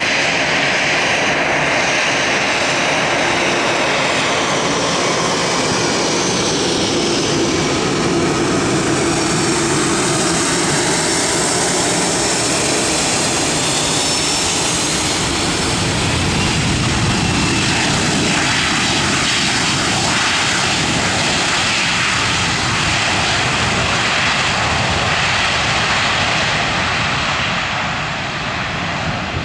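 Boeing 737-300's CFM56 jet engines heard close by as the airliner comes in on approach and lands, a steady loud jet noise with a falling pitch in the first several seconds as it passes. The noise continues through the landing roll and eases slightly near the end.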